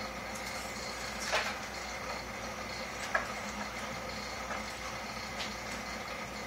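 Aquarium filtration equipment running with a steady hum and water noise, with a few brief clicks about one and a half and three seconds in.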